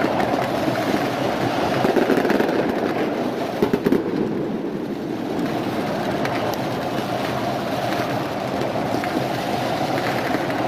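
A stadium crowd of football supporters keeping up a steady loud roar, with fireworks and firecrackers crackling and popping over it; a couple of sharp bangs stand out about four seconds in.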